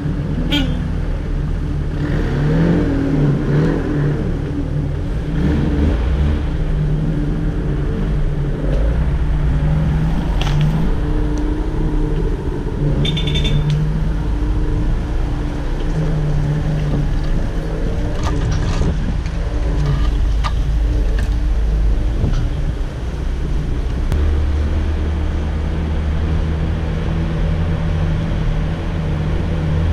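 Daihatsu Feroza 4x4 engine running at low speed on a rough dirt trail, heard from inside the cab, its note rising and falling with the throttle. A few short knocks and rattles come as the vehicle jolts over the ruts.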